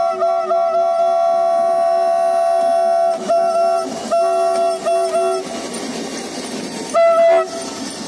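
Diesel locomotive's multi-tone air horn sounding a chord: a few quick toots, a long blast of about two seconds, then several short blasts. After the horn stops, the locomotive's engine and wheels rumble past close by, and one more short toot comes near the end.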